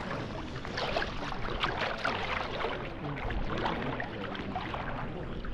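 River water flowing and splashing: a steady burble made up of many small, irregular splashes.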